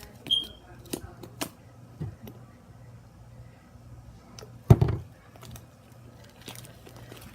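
Fluffy slime being squished and worked by hand: scattered sticky clicks and pops, with a brief squeak near the start and a louder thump about five seconds in.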